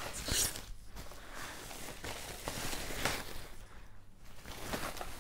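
Thin plastic bag rustling and crinkling in irregular bursts as a speaker is worked out of it by hand.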